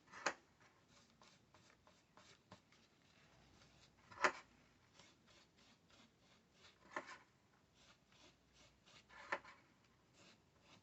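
Paper towel rubbing and crinkling as a server processor is wiped clean of old thermal paste with isopropyl alcohol: soft, repeated wiping strokes with four sharper handling sounds spread through it.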